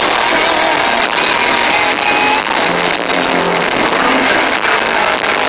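Heavy rock band playing live with electric guitars, recorded loud and distorted, with the sound crushed into the mids and highs and little bass.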